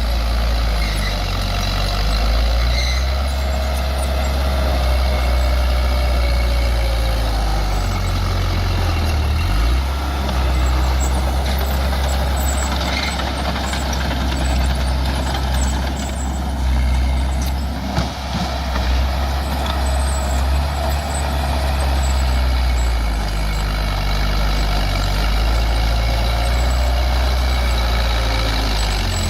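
Bulldozer's diesel engine running steadily at working speed, with a fainter whine that rises and falls twice.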